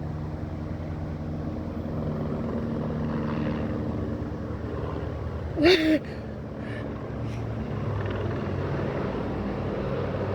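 Helicopter flying overhead: a steady drone of engine and rotor whose pitch drifts slightly as it circles. About five and a half seconds in, a brief loud cry cuts across it.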